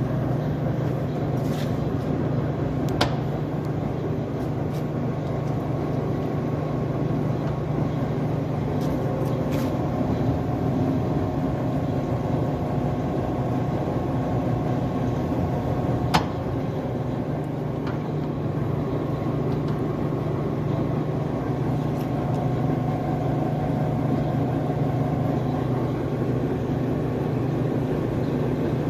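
Škoda SRM 100/4000 heavy centre lathe running, a steady low machine hum with a faint steady gear whine over it. Two sharp clicks sound, about three seconds in and again about sixteen seconds in.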